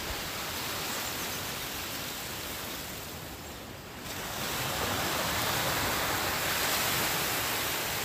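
Small sea waves washing onto the shore, a steady surf wash that eases about halfway through and then builds again as the next wave comes in.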